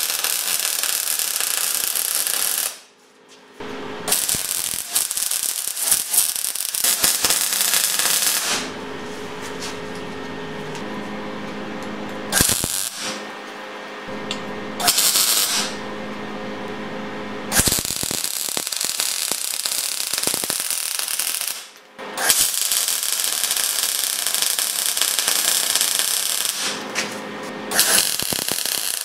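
Wire-feed welder arc crackling and sputtering as it lays welds on the steel tube frame, in several runs of a few seconds broken by short pauses where the trigger is released.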